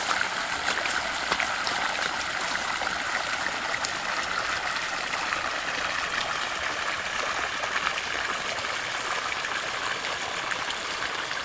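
Steady rush of water from the outlets of a siphon with two 60 mm pipes, splashing into standing water.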